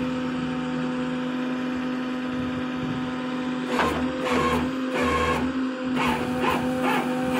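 2008 Ford F550 diesel rollback tow truck running with a steady whine. From about four seconds in comes a run of about six irregular knocks and rattles.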